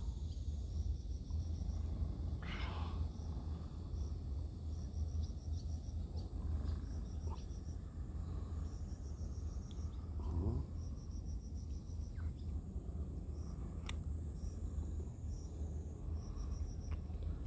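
Insects chirping in short trains of rapid high pulses that repeat every second or so, over a steady high-pitched insect drone and a continuous low rumble. A couple of faint sharp clicks break through.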